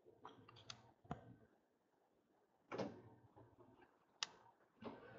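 Faint, scattered taps and clicks of a hand handling a tablet and tapping its touchscreen. There are about half a dozen short clicks, the sharpest about four seconds in, and a slightly longer rustle a little under three seconds in.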